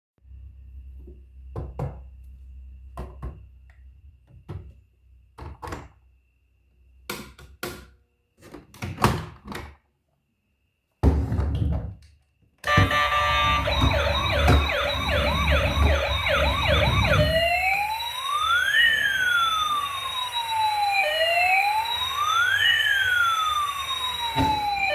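Scattered knocks and clicks, then a toy emergency vehicle's electronic siren switching on about halfway through: a fast yelp for about five seconds, then a slow rising and falling wail.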